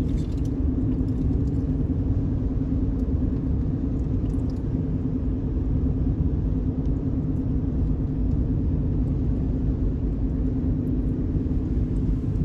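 Engine running steadily: a continuous low rumble with a constant hum.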